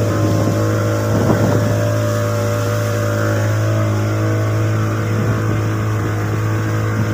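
A small passenger boat's engine drones steadily at cruising speed, with water rushing past the hull.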